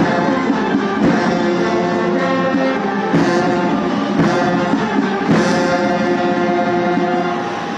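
Ceremonial band music with brass and a few drum beats, played while the leaders stand at attention, typical of a national anthem at a guard-of-honour welcome. The music tails off near the end.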